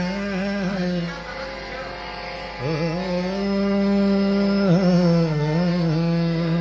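Live ghazal music, no words yet: a slow melody of long held notes, each reached by a slide and decorated with quick turns. There is a brief quieter pause between two phrases about a second in.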